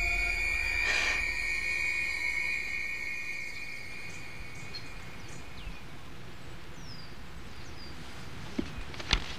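A sustained musical drone with a steady high tone fades away over the first few seconds. It gives way to outdoor ambience of birds chirping: short falling chirps repeated here and there. A few sharp clicks come near the end.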